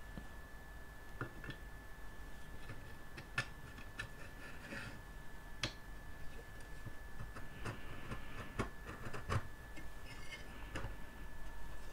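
Scattered light clicks and taps of bare sheet-metal panels being handled and fitted together onto the frame of a small enclosure, with a faint steady high tone behind them.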